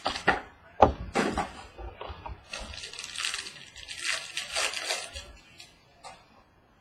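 Packaging being handled and torn open: a few sharp clicks and knocks, then a stretch of crinkling plastic wrap that fades out.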